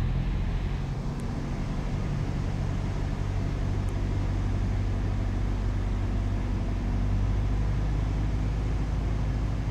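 Single-engine light airplane's piston engine and propeller droning steadily in the cabin, at reduced power for slow flight.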